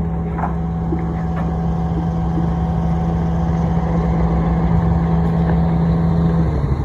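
An engine running steadily with a low, even hum; near the end the steady tone drops away and the sound turns to a quicker pulsing.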